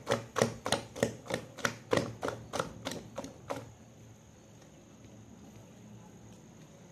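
A hand beating thick idli rice batter in a stainless steel vessel, slapping and squelching in a quick, steady rhythm of about three strokes a second. The strokes mix in the salt and beat air into the batter so the idlis come out soft. The beating stops about halfway through.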